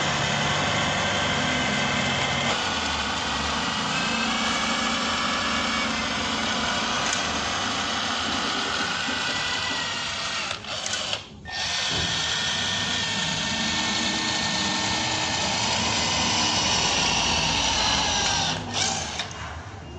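A small power-tool motor running steadily, its pitch shifting a little, with a brief stop about halfway through.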